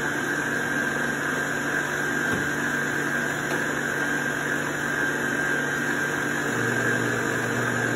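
Electric stand mixer motor running steadily with a continuous hum; its pitch steps down about six and a half seconds in.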